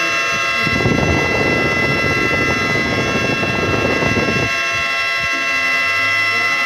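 Outdoor tornado warning siren sounding a steady, unchanging tone made of several pitches at once. A rush of rough, low noise joins it for a few seconds in the middle.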